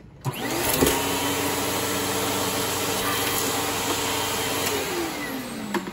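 Riccar 8905 vacuum cleaner's motor switched on, spinning up with a rising whine to a steady run, then switched off about five seconds later and winding down with a falling pitch.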